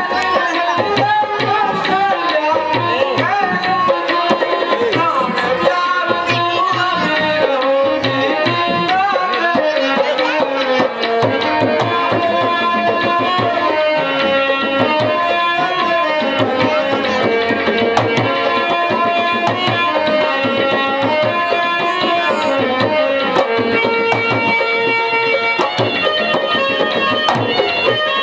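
Tabla drumming a steady rhythm under a melody of long held notes.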